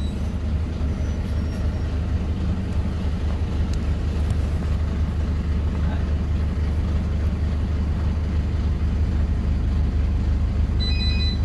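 PAZ 320414 city bus engine running with a steady low drone, heard from inside the passenger cabin. Near the end a short high electronic beep of several tones sounds over it.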